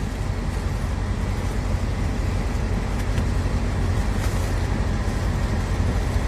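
Steady low rumbling background noise, even and unbroken, with no distinct events.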